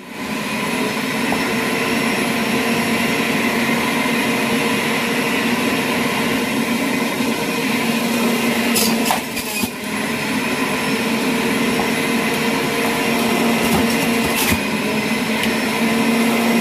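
Centrifugal juicer's electric motor running steadily with a constant hum as carrots are pushed down the feed chute and shredded. The sound dips briefly about nine seconds in, with a couple of sharp clicks along the way.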